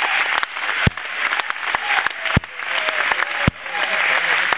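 A group applauding and cheering, with scattered shouts and sharp clacks cutting through.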